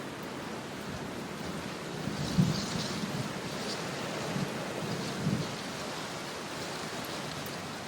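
Steady light rain pattering on window glass, with a few dull low thuds standing out, one about two and a half seconds in and another about five seconds in.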